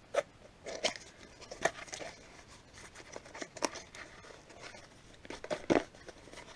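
A small cardboard box and its packaging handled by hand: irregular rustles, scrapes and light taps, with one sharper knock near the end.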